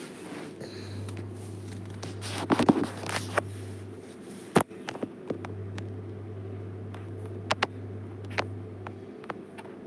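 Handling noise from a phone held at arm's length: scattered clicks and knocks over a steady low hum. The loudest are a dense cluster about two and a half seconds in and a single sharp knock a little later.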